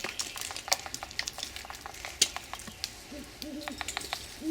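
Great horned owl calling: short low hooting notes, several in quick succession from about three seconds in. Many sharp clicks sound throughout.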